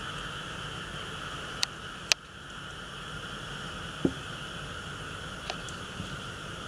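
Steady hiss with a few short sharp clicks: two close together about two seconds in, and smaller ones later.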